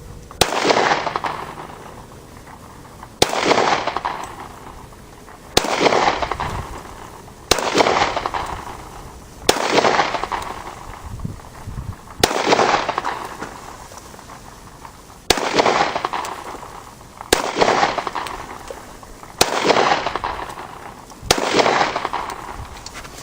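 Glock pistol fired ten times in slow, aimed succession, a shot every two to three seconds, each report followed by a rolling echo that dies away over a second or two.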